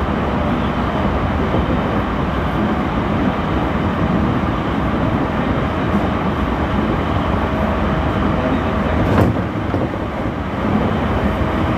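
JR East E231 series (renewed) electric multiple unit running on the line, heard from inside the car: a steady rumble of wheels on rails with a faint steady motor tone, and a single short knock about nine seconds in.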